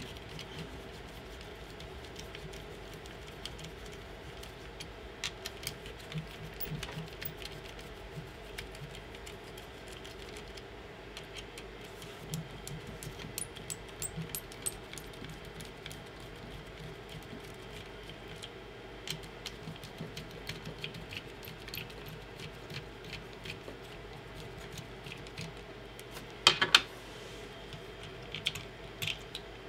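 Small scattered clicks and ticks of a hex key working the screws and plastic parts of a 3D printer's extruder while its fans are taken off, with a brief louder clatter near the end as parts are handled.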